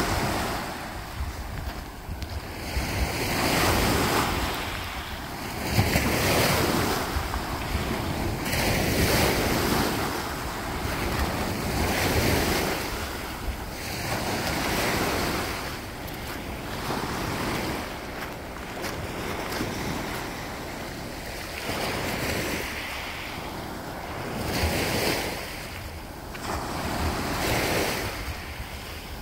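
Small Baltic Sea waves washing in over a pebble-and-sand shoreline, swelling and falling away every two to three seconds. Wind buffets the microphone.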